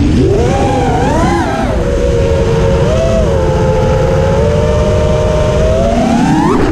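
Brushless motors and three-blade 5-inch props of an FPV racing quadcopter whining in flight over a low rushing noise. The pitch rises and dips in the first second or two, holds fairly steady, then climbs sharply near the end.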